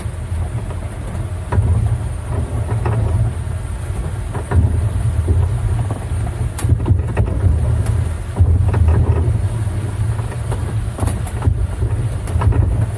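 Low, fluctuating rumble and wind buffeting on the microphone of an open golf-cart-based tram riding over brick paving, with scattered light rattles and knocks.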